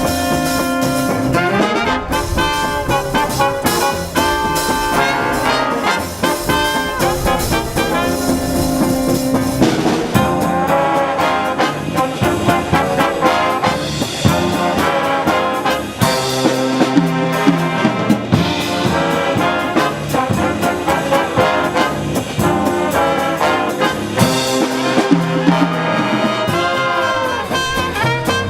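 High school jazz big band playing a swing number, with trumpets and trombones to the fore over drums.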